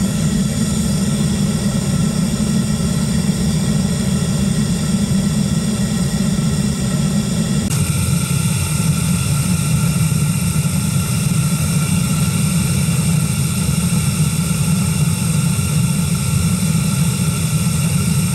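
Propane-fired metal-melting furnace burning, melting copper: a loud, steady burner rush, its tone shifting slightly about eight seconds in.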